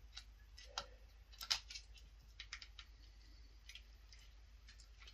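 Faint, irregular small clicks and ticks from a Zippo Slim lighter being handled, its metal parts knocking and clicking, the strongest about a second and a half in.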